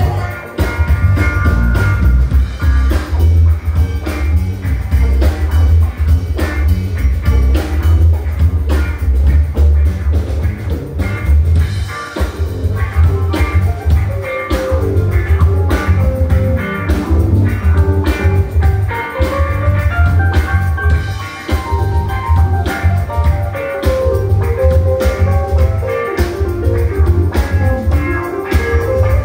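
Live band playing: electric bass and drum kit under electric guitar and keyboard, with a melody line moving over them.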